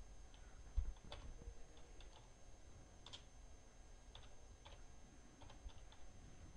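Faint, irregular keystrokes on a computer keyboard as a short text is typed. There is a low thump just before a second in.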